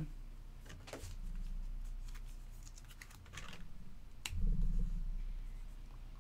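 Scattered light clicks and taps of hands handling a card and a marker on a tabletop, with one sharper click about four seconds in and a brief rustle after it.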